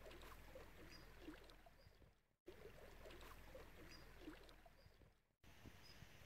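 Near silence: faint outdoor ambience with a few faint, short, high chirps, and the sound cuts out completely twice for a moment.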